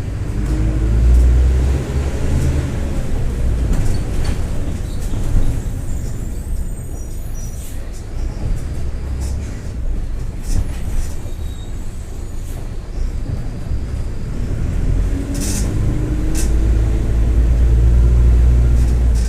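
Mercedes-Benz OF-1721 BlueTec 5 bus under way with its diesel engine running in a low rumble. A whine rises in pitch as the bus gathers speed, once near the start and again towards the end; it comes from the differential growling. A few sharp clatters sound about three quarters of the way through.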